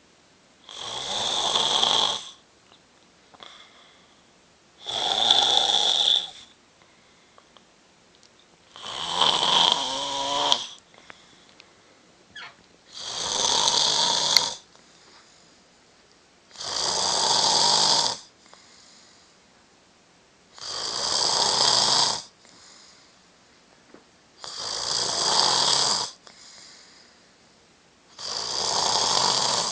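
A man snoring loudly and steadily: eight long snores about four seconds apart, each lasting a second or more, with faint breaths in between.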